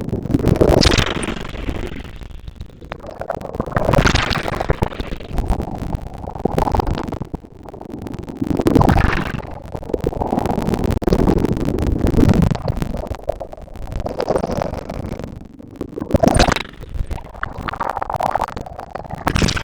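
Ocean waves breaking on a beach, the surf swelling and washing back about every four seconds over a low rumble.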